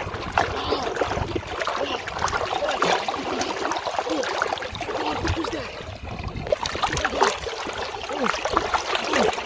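River water splashing and trickling, a busy continuous spatter that eases briefly about six seconds in.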